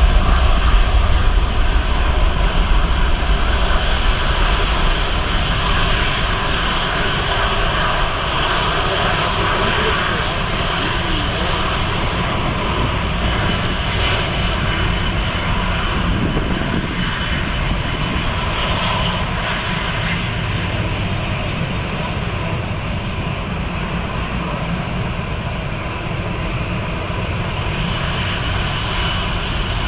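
Airbus A330-343's Rolls-Royce Trent 700 jet engines running as the airliner taxis past, a steady rush of jet noise with a faint whine, easing slightly as it moves on.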